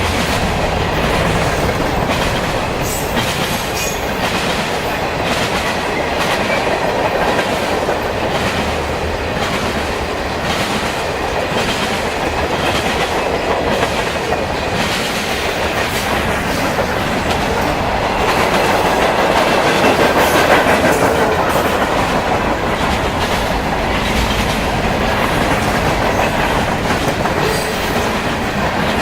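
Canadian National freight train's cars rolling past, a steady rumble with repeated clicks of steel wheels over the rail joints, swelling a little about twenty seconds in.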